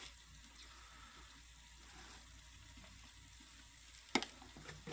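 Onion and garlic frying in oil in a steel pot: a quiet, steady sizzle. About four seconds in there is one sharp tap.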